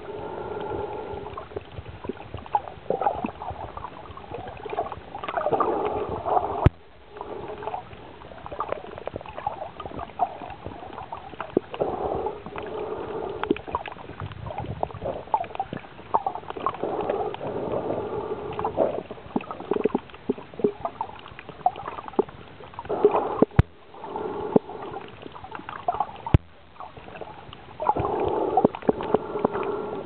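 Underwater water noise with bursts of bubbling and gurgling every few seconds and scattered small clicks. The sound drops out abruptly three times.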